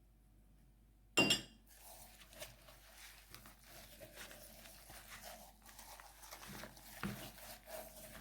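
Hands rubbing spice seasoning into a raw chicken: faint, irregular wet rubbing and squishing. A sharp clink of a dish with a brief ring comes about a second in, and a lighter knock near the end.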